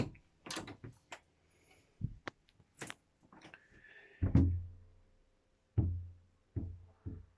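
A series of separate knocks and thumps in a yacht's cabin, the loudest about four seconds in and another near six seconds, each leaving a short low boom, with smaller clicks between.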